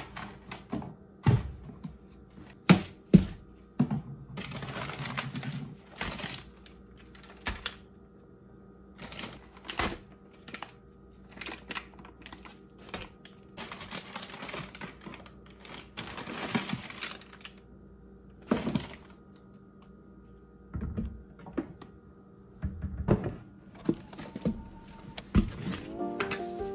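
Bags and containers of dry ingredients set down on a kitchen counter one after another: irregular knocks and thuds, with plastic packaging crinkling now and then.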